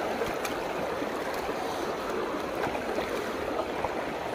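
Water of a shallow rocky stream running steadily, with a few faint splashes from feet wading through it.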